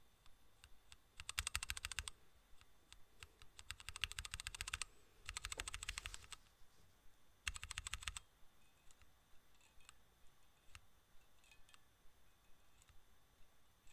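Four short bursts of rapid, even clicking, each lasting about a second, with scattered single clicks between them.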